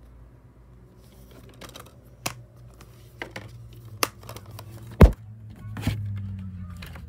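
Plastic Blu-ray cases being handled: a run of sharp clicks and knocks, with one loud thump about five seconds in.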